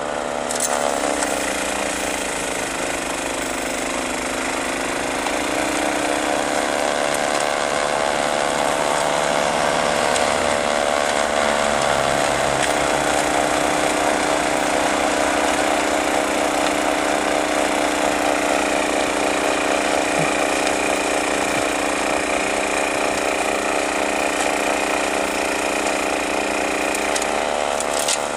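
Honda HS970 TS tracked snowblower's single-cylinder petrol engine running steadily under load while the machine clears and throws snow, its pitch shifting slightly now and then.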